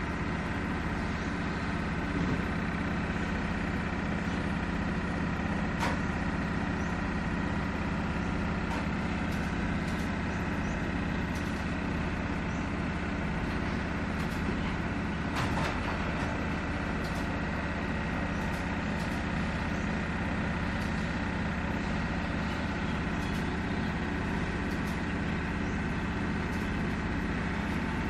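Engine idling steadily, an even low hum that does not change in pitch or level, with a few faint clicks.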